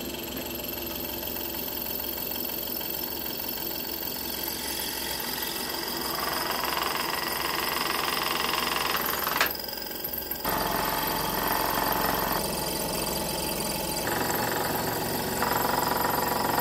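Scroll saw running, its reciprocating blade cutting through a polyester-resin faux-ivory blank with a steady buzz. The sound shifts abruptly several times.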